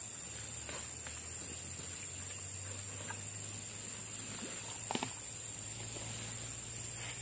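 Steady high-pitched insect chorus droning without a break, over a faint low hum, with a few light ticks and one sharper click about five seconds in.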